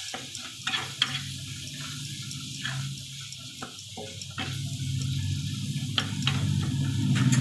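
Spatula stirring and scraping an onion-and-spice masala frying in oil in a kadai: a steady sizzle with irregular clicks of the spatula against the pan. A low steady hum underneath grows louder from about halfway.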